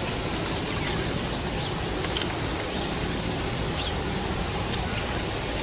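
Steady outdoor background noise with a constant high-pitched insect drone running over it and a few faint ticks.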